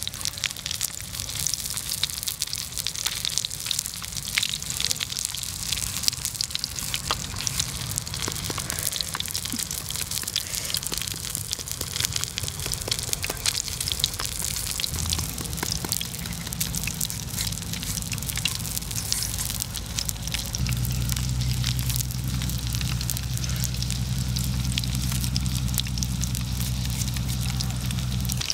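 Rapid, crackly scraping of a hand shredder cutting strips from a firm green mango, many quick strokes in a row. A steady low hum comes in about two-thirds of the way through.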